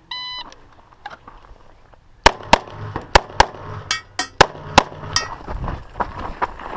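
Shot timer beeps once to start the run, then a pistol fires a string of about eight shots, mostly in quick pairs, with faint clatter between them.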